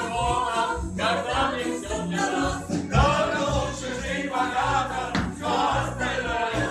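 A song playing: voices singing over a bass accompaniment.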